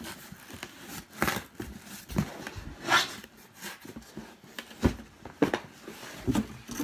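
Corrugated cardboard shipping box being handled and opened: flaps scraping and bumping, with irregular rustles and knocks, the sharpest about five seconds in.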